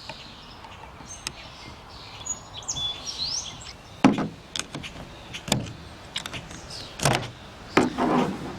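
Scattered clicks and knocks of screws and metal and plastic parts being handled while a paper shredder's gear housing is unscrewed, with a few short bird chirps in the background.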